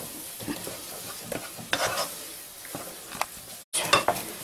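Wooden spoon stirring and scraping thick choux pastry dough around a pot on the heat, in irregular strokes. The dough is being cooked and dried until it gathers into a ball. The sound breaks off briefly near the end.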